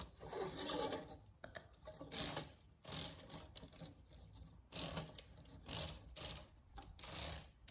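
Irregular light scraping and knocking of plastic LEGO parts as the AT-ST's head-turning play feature is worked by hand.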